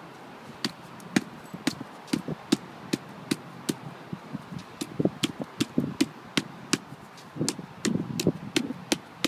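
A long-handled tamping tool with a square foot striking a plastic court line again and again, pressing it down into a track cut in the wet clay court surface: about two to three sharp taps a second, with duller thuds that grow heavier in the second half.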